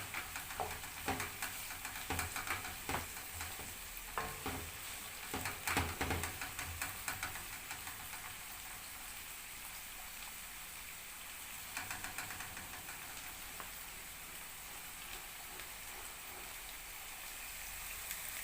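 Chopped onion and bell peppers sizzling in hot oil in a pan, with a utensil clicking and scraping against the pan for the first several seconds, then a steady sizzle with a few more knocks a little past the middle.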